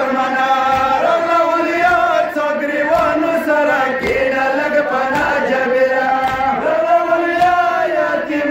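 A man chanting a Pashto nohay, a Shia mourning lament, in long, drawn-out melodic phrases with short breaks between them. Faint dull thumps sound now and then underneath.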